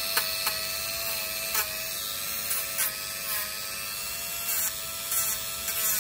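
Dremel rotary tool with a sanding drum running with a steady high whine while grinding down a dog's toenails. It is touched to the nail in short taps, each giving a brief grinding rasp over the motor sound.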